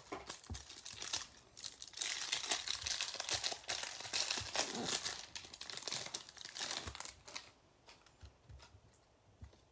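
Plastic wrapper on a stack of baseball cards being torn open and crinkled off by hand, a dense crackling that stops about seven and a half seconds in. A few faint clicks of the cards being handled follow.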